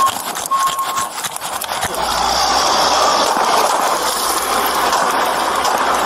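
Quick footsteps of someone running on pavement, with a short high beep repeating, then, from about two seconds in, the loud, steady running of a backhoe's engine close by.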